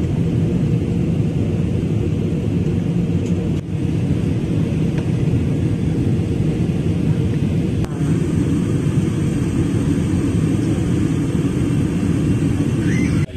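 Cabin noise of a jet airliner in cruise: a steady, deep rumble of engines and rushing air heard through the window seat, dipping for an instant twice.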